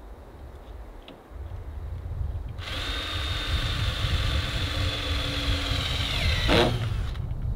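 Cordless drill running steadily for about four seconds, driving a screw into the wooden platform, its whine dropping in pitch near the end and followed by a sharp click. A low rumble runs underneath.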